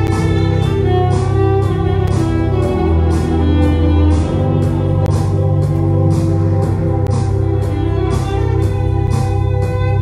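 Live Arabic improvisation: an electric violin playing a melody over an arranger keyboard's bass, chords and steady drum beat.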